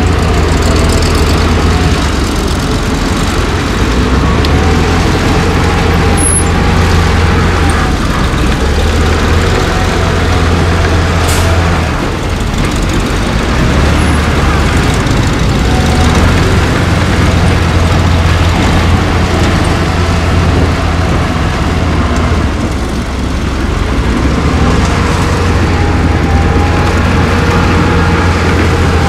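Heavy diesel earthmoving machinery running steadily under load. The engine's low hum eases briefly about twelve seconds in and again near twenty-three seconds, with a few short sharp clanks.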